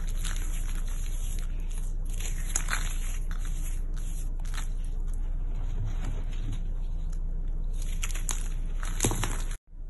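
Dry, powdery chalk-like chunks crushed and crumbled in a bare hand: irregular crackling and crunching, with a few louder crunches as pieces break. The sound cuts out briefly near the end.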